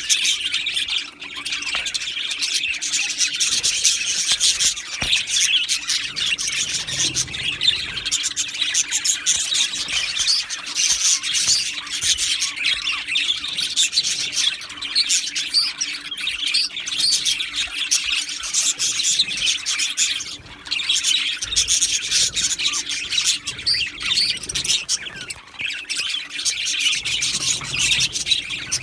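A flock of budgerigars chattering continuously: many overlapping high chirps, warbles and squawks with no pauses.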